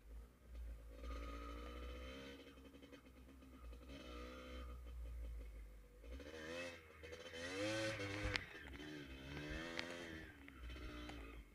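A vehicle engine running, its pitch wavering up and down and rising about halfway through, over a steady low rumble.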